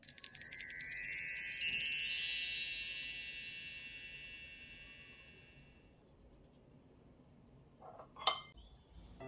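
A cascade of high, bright chime tones, struck in a quick run like bar chimes, ringing on and fading away over about six seconds. A short clink comes about 8 seconds in.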